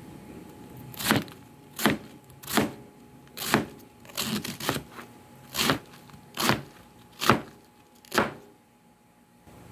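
Kitchen knife slicing through a head of cabbage on a cutting board: about nine separate strokes, a little under one a second, stopping shortly before the end.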